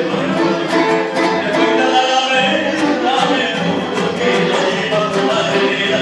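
Two acoustic guitars playing a Peruvian vals together, many plucked notes over regular chord strokes.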